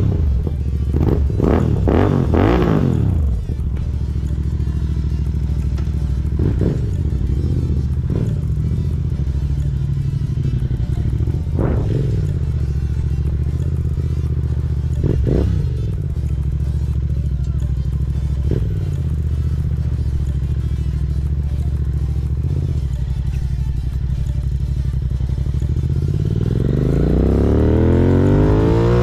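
Royal Enfield Continental GT 650's parallel-twin engine through an aftermarket Red Rooster exhaust, heard from the rider's seat. A few quick throttle blips come in the first few seconds, then it runs at low speed with short blips every few seconds, and it revs up steadily as the bike accelerates near the end.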